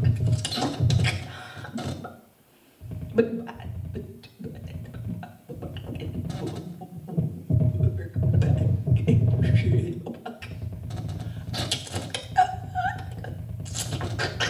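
A woman's voice at a microphone making non-verbal vocal sounds: breathy hisses, mouth clicks and low vocal sounds in broken phrases, with a couple of brief higher sung notes near the end.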